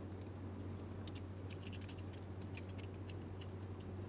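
Faint, irregular small clicks and ticks of a screwdriver turning out one of the screws that hold the gear housing on a DeWalt angle grinder, over a steady low hum.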